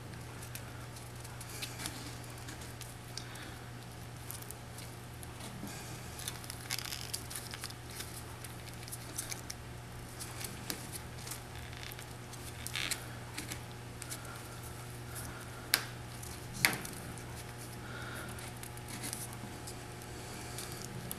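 Hemp twine pulled tight and wound around a paper shell casing while spiking it: faint rustling and creaking of twine on paper with scattered small clicks, a few sharper ones around 16 and 17 seconds in, over a steady low hum.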